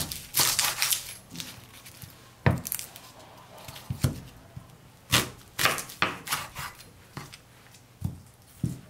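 Kitchen knife cutting through a whole onion on a wooden cutting board: a series of irregular crunching cuts through the papery skin and knocks of the blade on the board.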